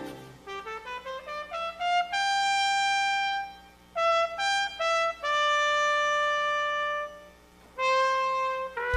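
Solo brass instrument playing an unaccompanied melody: a quick rising run of notes, then long held notes broken by a few short ones.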